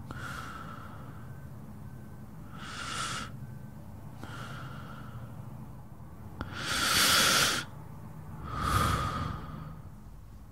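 A person breathing heavily and slowly, about five drawn-out breaths, the loudest one about seven seconds in, over a low steady hum.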